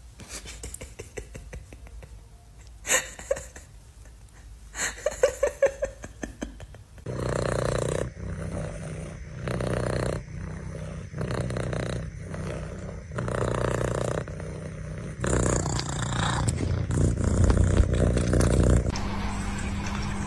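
Domestic cats vocalizing: a few short sharp sounds and brief calls in the first seven seconds, then a run of loud cat calls, each about a second long, with short gaps between them.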